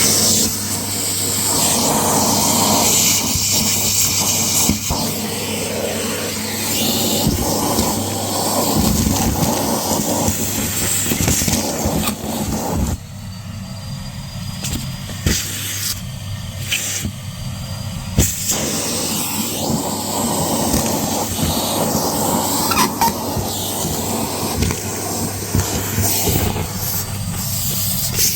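Numatic Hetty canister vacuum cleaner running, sucking up a crunchy homemade dirt mix through its tool with a steady motor hum and constant gritty crackling. About halfway through the sound goes duller for a few seconds, with a faint high whistle, before the full crackling suction returns.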